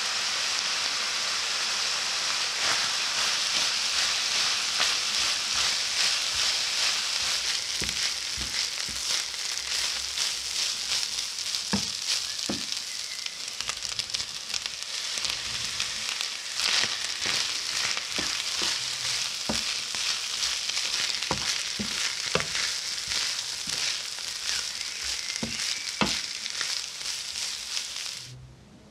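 Minced meat, onion and rice sizzling in a frying pan, with scattered clicks and taps as corn and pomegranate seeds drop in and a wooden spoon stirs the mix. The sizzling cuts off near the end.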